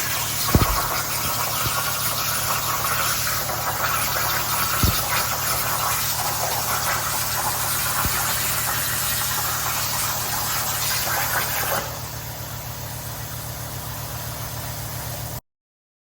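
Plasma torch on a Langmuir Systems CNC plasma table cutting: a steady hiss with a steady low hum underneath and a few sharp clicks. About twelve seconds in the sound drops to a quieter level, then cuts off suddenly near the end.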